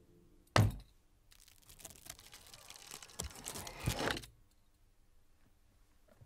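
A single thump about half a second in, then a cat's claws scratching and scrabbling at the side of a kitchen counter for about three seconds, growing louder before stopping abruptly.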